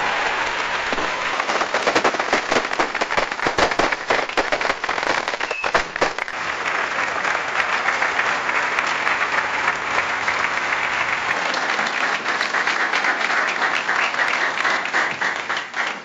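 Audience applauding: dense, steady clapping from many hands, with a few sharp single claps standing out early on, tailing off right at the end.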